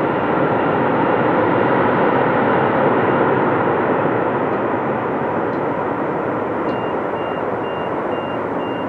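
Jet engines of a Boeing 747 Dreamlifter running loud and steady as the freighter rolls out down the runway after landing, easing off slightly in the second half. A high, thin beep repeats about twice a second early on and again near the end.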